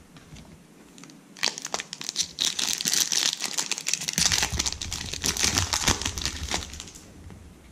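Foil trading-card pack wrapper crinkling and tearing as it is handled, starting about a second and a half in and lasting about five seconds.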